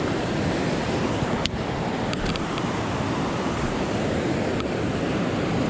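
Steady rush of fast-flowing run-off water at a river barrage, with a single knock about a second and a half in.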